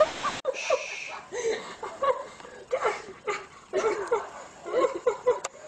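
Ocean surf noise that cuts off abruptly within the first half-second, then people chuckling and snickering in many short bursts.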